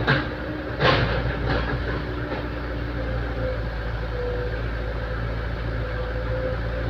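Excavator's diesel engine running steadily, with two sharp knocks in the first second and a fainter one shortly after.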